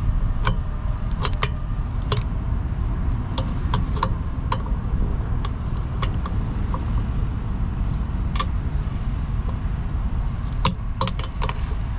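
Sharp metallic clicks and clinks at irregular intervals from hand tools working the mounting bolts of a truck's drive-axle air spring, over a steady low rumble.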